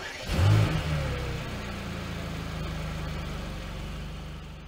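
A car engine starts with a quick rev that falls away, then settles into a steady idle that fades out at the end.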